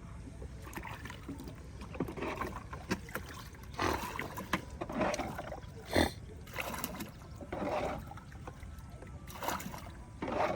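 Irregular splashing and sloshing of water, with a sharp knock about six seconds in.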